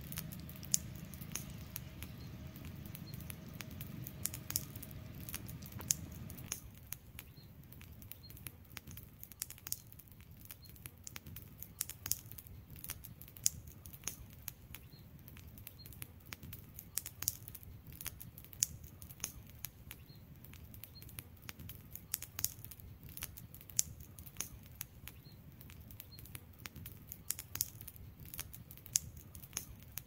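Wood fire crackling: irregular sharp pops and snaps from burning logs over a soft low rumble, which drops away about six seconds in.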